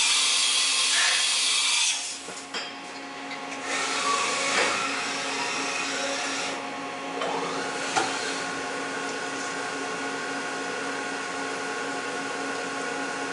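1992 Haas VF2 CNC vertical machining center running, a steady motor whine made of several tones. Loud bursts of hiss come in the first two seconds and again from about four to six and a half seconds in, with a sharp click about eight seconds in.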